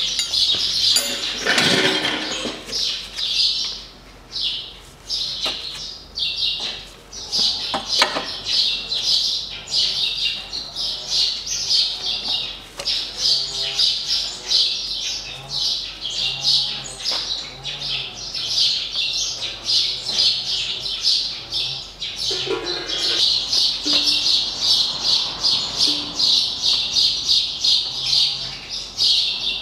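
Small birds chirping rapidly and continuously, with a brief louder swishing noise about two seconds in and a short burst of noise a few seconds before the end.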